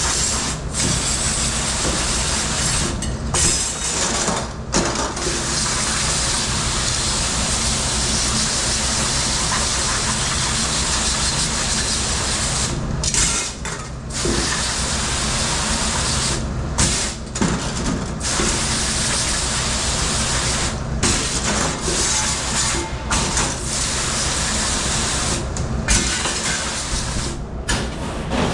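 Water spraying hard in a commercial dish pit, cut off briefly about ten times as the spray stops and restarts, over a steady machine hum.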